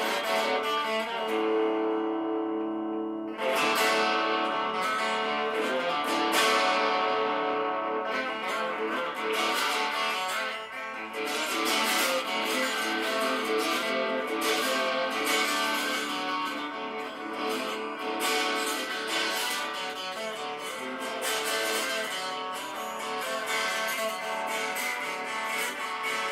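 Guitar playing an instrumental passage with no voice: it starts suddenly, holds a few ringing notes for the first three seconds or so, then goes into busier strumming and picking.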